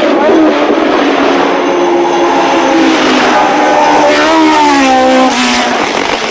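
1975 Formula One car engine at full racing speed, a hard, high-revving note over tyre and wind noise. The pitch holds, then swoops up and drops sharply twice in the second half as the car changes gear and passes.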